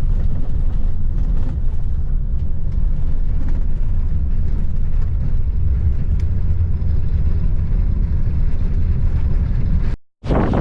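Steady low rumble of a motor vehicle driving, which cuts off abruptly about ten seconds in.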